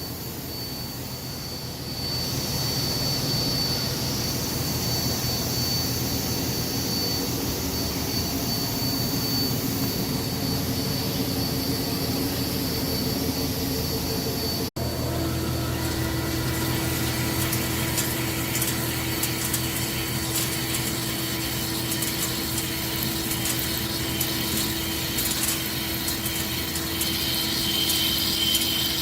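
CNC lathe running while machining a spur pinion shaft: a steady mechanical hum with a thin, steady whine. About halfway through, the sound cuts out for an instant and comes back with a different pitch, now with a fine crackle of cutting.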